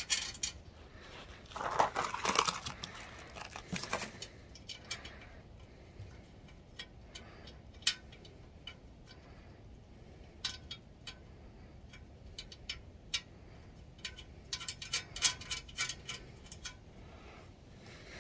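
Small metal clicks and rattles of steel carriage bolts, nuts and a hitch bracket being handled and fitted by hand against a mower's frame, with a short rustling scrape about two seconds in and a quick run of clicks near the end.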